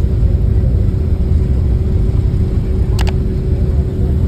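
Steady low rumble of a Boeing 767-300's cabin while taxiing after landing, the engines at idle, with a faint steady hum over it. A quick double click about three seconds in, the sound effect of an on-screen subscribe button.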